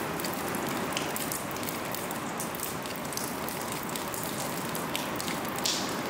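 Water dripping through a leaking roof into a shallow puddle on the floor: many small, irregular splashes over a steady patter of falling water.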